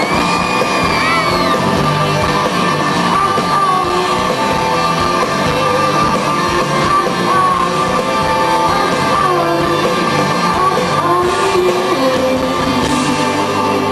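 Live soulful rock band music, loud and steady, with guitar and a woman singing at the microphone.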